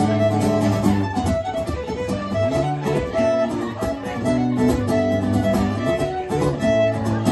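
Fiddle and guitar playing a tune together: a bowed fiddle melody of held notes over the guitar.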